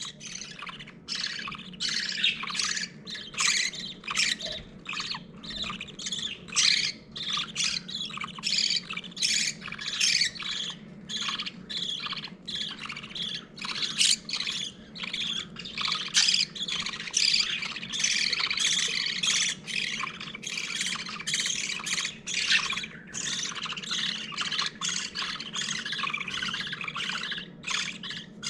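Week-old budgerigar chicks begging while the hen feeds them: rapid, repeated squawky cheeping, two or three calls a second, without a break. A steady low hum runs underneath.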